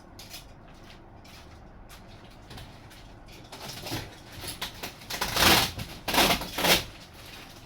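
Packaging rustling and scraping as the large wing spars of a model plane kit are handled and pulled from their wrapping. It starts with a few light clicks, then several loud, noisy rustling bursts come in the second half.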